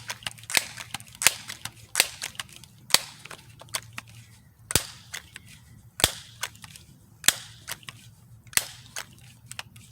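Crosman 1377 multi-pump air pistol being charged with its pump lever, stroke after stroke: a sharp clack about once a second as the forearm is worked, charging it toward 10 pumps. By that count the pumping is getting stiff.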